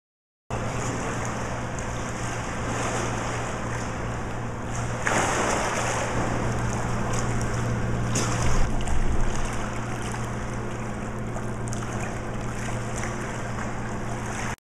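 Steady rushing, splashing water noise over a low steady hum, swelling louder about five seconds in and again around eight to nine seconds. It starts and cuts off abruptly.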